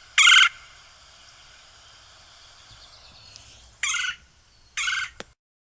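Red-bellied woodpecker giving short, harsh, rolling churr calls, each about a third of a second long. One call comes at the start and two more come about four and five seconds in, over a steady background hiss.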